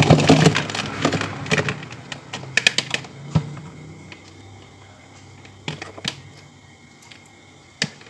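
Clicks and rattles of a digital multimeter and its test leads being handled while a resistance test is set up. The noise is busiest in the first three seconds, with a sharp click about three and a half seconds in, and then a few scattered clicks.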